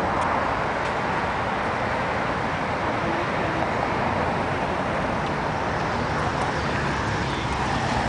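Steady city street traffic noise from cars passing.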